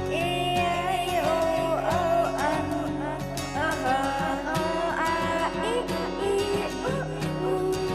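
Background music: the instrumental lead-in of a children's Hindi alphabet song, a sliding melody over a plucked accompaniment.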